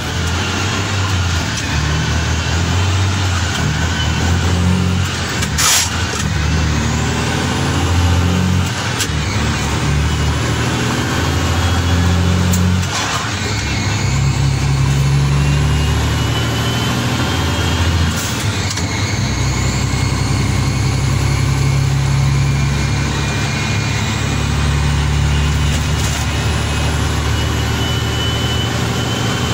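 Mack CH truck's diesel engine running under load in the cab while the truck drives, its pitch stepping down and up a few times, with a few sharp clicks or knocks and a faint high whistle that rises and falls.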